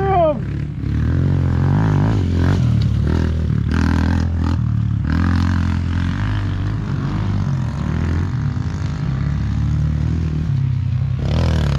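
Four-stroke dirt bike engine running under way, its pitch rising and falling as the throttle opens and closes.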